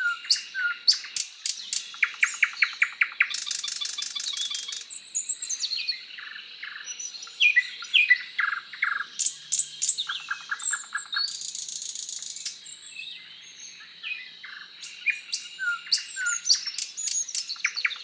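Several songbirds chirping and singing together, a mix of short chirps, sweeping whistles and quick rattling trills.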